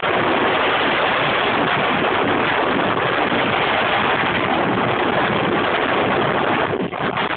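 Steady rushing wind noise on the microphone of a downhill mountain bike moving at speed down a trail, easing briefly near the end.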